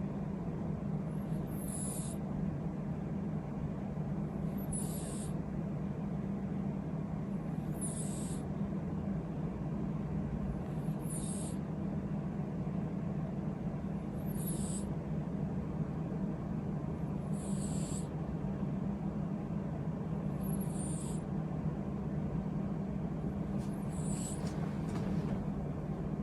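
Exotic Shorthair cat snoring in its sleep: a short, high whistling breath about every three seconds, over a steady low hum.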